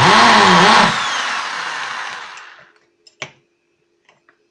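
Electric drill boring a hole through a thin aluminium plate, its motor pitch dipping and rising as the bit bites. About a second in the trigger is released and the drill winds down over the next two seconds, followed by a single sharp click and a few light knocks.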